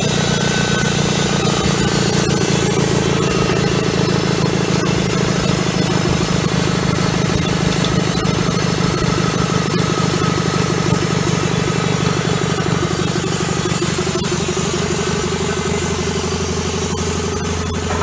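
Kohler gas engine running steadily, driving the blade of a homemade bandsaw sawmill as the saw head is pushed along a log.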